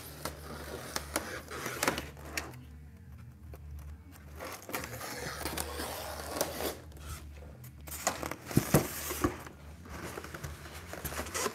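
Cardboard shipping box being opened: a blade slitting the packing tape, then tape and cardboard rustling and scraping as the lid is lifted and the inner box slid out, with a few sharp knocks about eight to nine seconds in.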